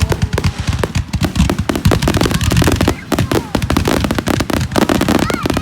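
Fireworks going off in a dense, rapid barrage of loud bangs and crackles, many per second without a break.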